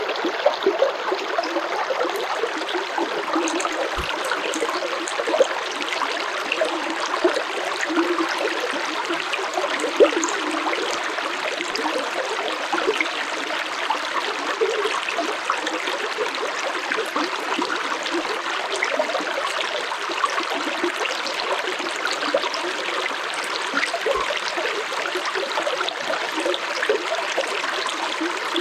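Stream water flowing and splashing steadily over rocks, a continuous bubbling rush with small irregular splashes.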